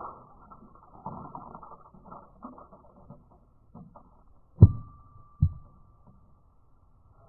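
Two sharp hammer blows on an electric grave-candle insert, about a second apart past the middle, the first the loudest and followed by a thin ringing tone. Faint scattered knocks and clatter around them.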